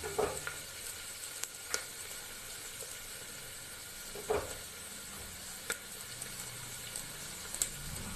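Chopped onions sizzling steadily in hot oil in a pressure cooker, not yet browned, with a few short clicks of the stirring spoon against the pot.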